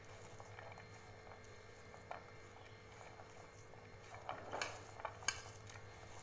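Fingers mixing chopped onion, green chilli, curry leaves and coriander on a ceramic plate: faint rustling with scattered light clicks against the plate, and a few sharper clicks near the end.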